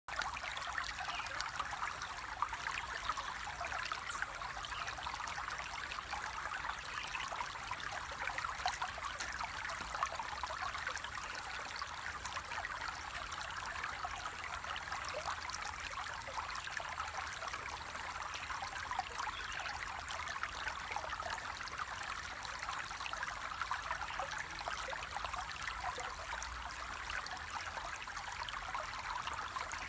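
Flowing water running steadily, a dense, even rush of small splashes that never lets up.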